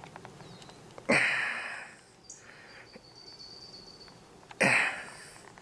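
Two sharp, loud breaths close to the microphone, about three and a half seconds apart, each fading away in under a second.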